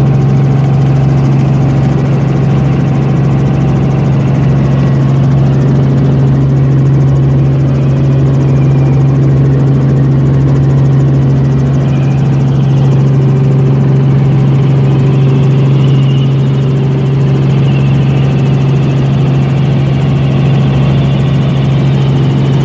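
Robinson R44 Raven II helicopter in flight, heard from inside the cabin. The engine and rotors make a loud, steady drone with a strong low hum.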